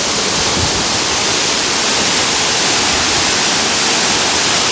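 Manthokha Waterfall, a high mountain waterfall, pouring down in a loud, steady rush of water.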